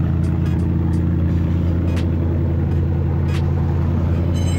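Bentley Continental GT V8 S's 4.0-litre twin-turbo V8 idling steadily through its sports exhaust, a loud low steady note with no revving.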